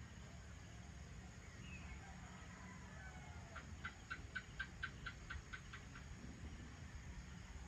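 Quiet night ambience with a steady low rumble and a few faint chirps. About three and a half seconds in, an animal calls: a quick run of about a dozen evenly spaced chirps, about five a second, lasting a little over two seconds.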